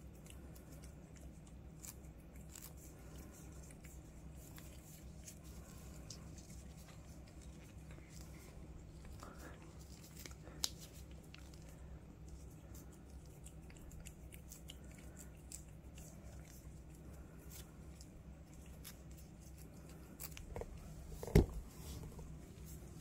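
A cat licking a liquid treat from a squeeze pouch: faint quick ticks of tongue on paste and pouch, over a low steady hum. Near the end a single sharp knock, the loudest sound.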